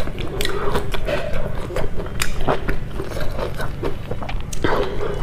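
Close-miked chewing, with wet lip smacks and mouth clicks coming several times a second.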